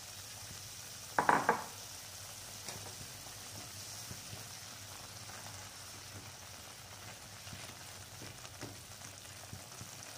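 Instant noodles simmering in masala water in a non-stick pan, a steady bubbling hiss, while a spatula stirs and breaks up the noodle cakes with faint scrapes and ticks. A brief loud clatter about a second in.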